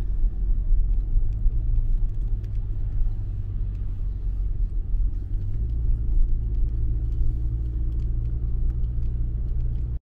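Low, steady rumble of a car driving on the road, heard from inside the cabin; the rumble gets a little heavier about halfway through.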